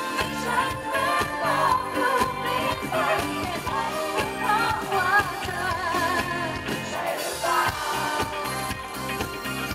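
A man and a woman singing a Thai pop ballad duet with a live band, with notes held in vibrato about halfway through. Near the end the singing stops while the band plays on.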